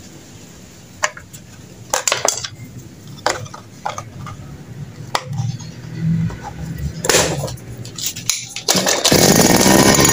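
Metal clinks and knocks of hand tools on a Kawasaki TD40 brush cutter engine, then about nine seconds in the small two-stroke engine starts and runs loudly and steadily.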